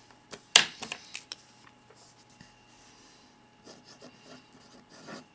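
Ballpoint pen writing on paper: short scratchy strokes in two spells. About half a second in there is a sharp knock, the loudest sound, as of the pen or hand striking the paper and desk.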